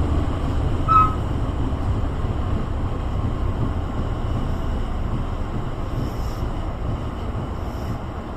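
Tobu 8000 series electric commuter train running between stations: a steady rumble of wheels on rail, with a brief high squeal about a second in, slowly getting quieter.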